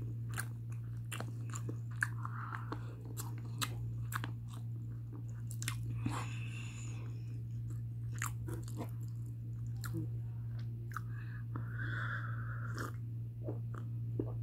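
Close-up chewing of mutton biryani eaten by hand: soft wet mouth clicks and smacks, scattered irregularly, over a steady low hum.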